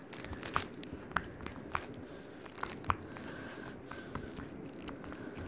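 Soft, irregular popping clicks from the bubbles of a silicone heart-shaped pop-it fidget toy being pressed in.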